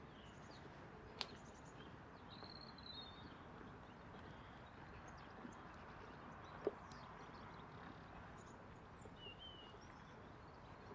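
Near silence: faint outdoor ambience with a few distant bird chirps, about two seconds in and again near the end, and two soft clicks.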